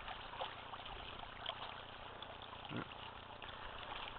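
Faint lapping of small waves against the rocky shore of a reservoir, with a brief, faint falling sound about two-thirds of the way through.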